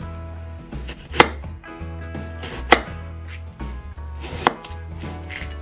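Knife cutting fruit on a cutting board: three sharp chops about a second and a half apart, with lighter cuts between. Soft background music plays underneath.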